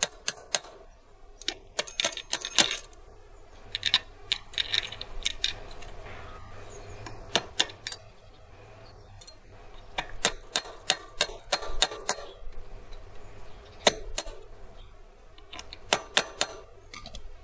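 Steel bicycle sprockets and spacers clinking and clicking against each other and the splined hub of a motor wheel as they are fitted on by hand, in irregular clusters of sharp metal clicks.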